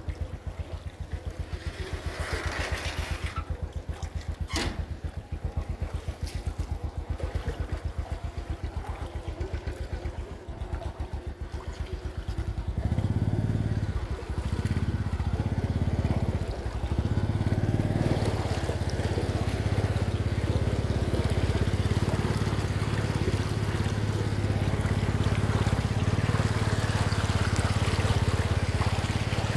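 2009 Suzuki Shogun RR moped engine idling with a fast, even putter. About thirteen seconds in it is throttled up and runs louder and steadier as the moped wades through about a foot of flood water, with the rush and splash of water thrown up by the front.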